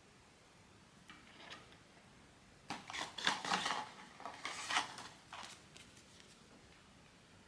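Blind-box packaging being handled and opened by hand: rustling and crackling in short bursts, a faint one about a second in and a louder run from about three to five and a half seconds in.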